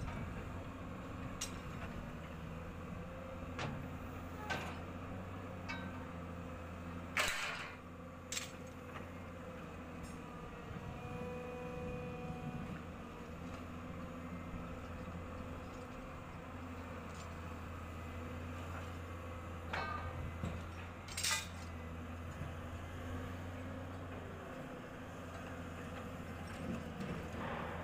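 Excavator's diesel engine running steadily, with sharp metallic clanks from time to time, the loudest about seven seconds in and another about twenty-one seconds in.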